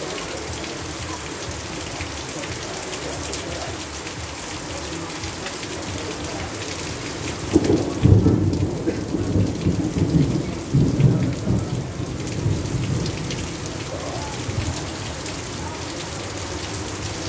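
Heavy rain falling steadily. About halfway through a roll of thunder breaks in suddenly and rumbles for several seconds before fading back under the rain.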